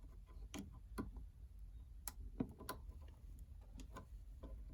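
Scattered small clicks and taps, a dozen or so at irregular intervals, from handling the CPU fan's cable and pushing its plastic connector onto the motherboard fan header.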